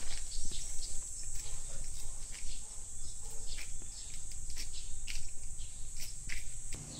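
A steady high-pitched insect drone, with many short, irregular scuffs and clicks from walking and handling the camera.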